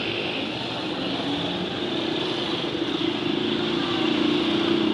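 Street traffic with a small motorcycle engine running close by, growing louder in the last couple of seconds.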